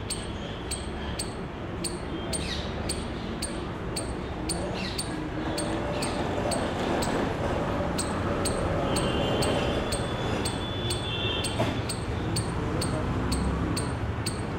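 Outdoor background noise with a sharp, regular tick about twice a second, and faint distant voices at times.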